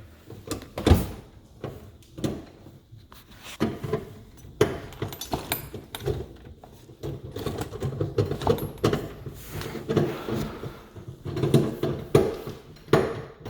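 Irregular clicks, knocks and scrapes of a flathead screwdriver and hands working at the garbage disposal's sink mounting, prying at its snap ring.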